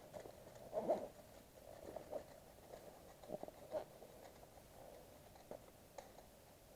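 Faint, irregular rustling and scuffing with a few soft clicks, from a player's clothing and kit moving close to the microphone.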